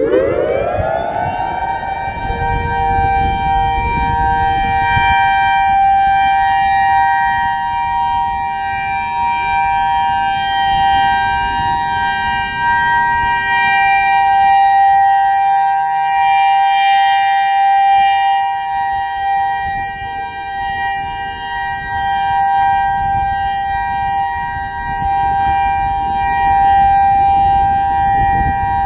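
Federal Signal EOWS-612 electronic outdoor warning siren sounding its steady alert test signal. The pitch sweeps up quickly over about the first second and a half, then holds as a loud, steady, high dual tone.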